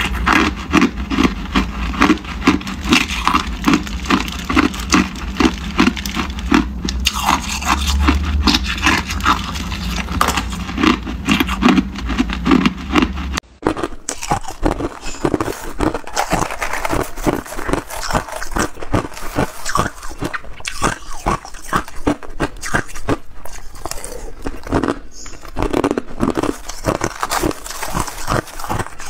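Close-miked crunching of hard, clear ice being bitten and chewed, rapid crunches in quick succession over a low steady hum. About 13 seconds in the hum stops and it becomes crushed ice eaten from a spoon, its crunches sharper and more spaced out.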